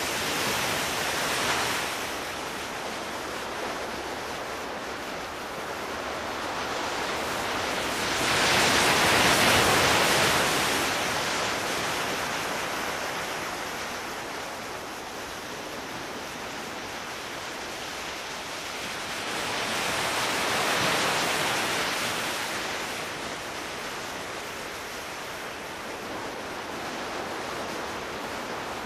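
Sea waves washing onto a shore: a steady rush of surf that swells louder three times as waves break, then falls back.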